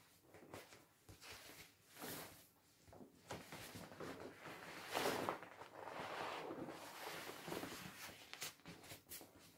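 Inflated vinyl paddling pool being handled and turned, its plastic rings rubbing against hands and each other in irregular scuffs, loudest about five seconds in.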